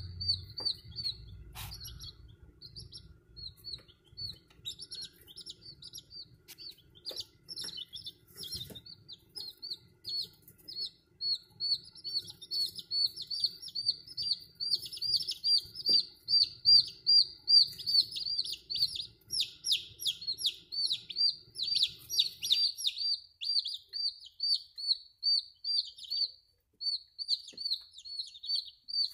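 Domestic chicken chick peeping: an unbroken run of short, high, falling peeps, several a second, growing louder about halfway through.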